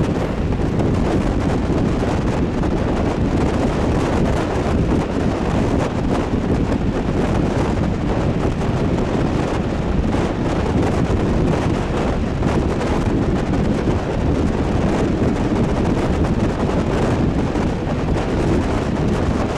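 Wind buffeting the microphone held out of a carriage window, over the steady rumble of a passenger train running at speed.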